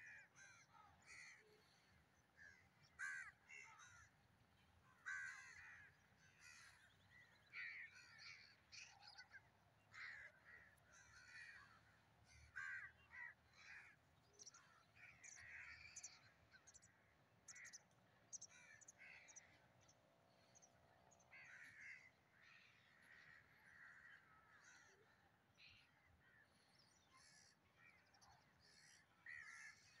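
Crows cawing faintly, many short calls at irregular intervals.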